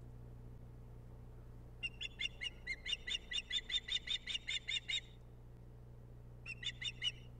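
Osprey calling from its nest: a rapid run of high-pitched chirps, about five a second, for some three seconds, then a shorter burst of four or five more about a second and a half later. A steady low hum lies underneath.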